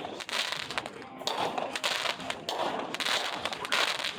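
Fireworks crackling: a dense, continuous stream of rapid pops that swells and eases a few times.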